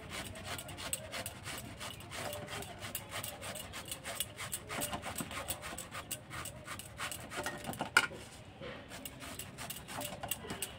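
Cauliflower being grated on a flat stainless-steel hand grater: quick, repeated scraping strokes, with one sharper tap about eight seconds in.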